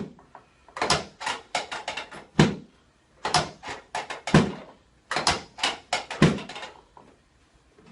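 Chiropractic drop table clacking as its padded section is thrust down and drops during a pelvic realignment. Each drop is a cluster of quick clicks ending in a heavier thud, repeated about every two seconds, three to four times.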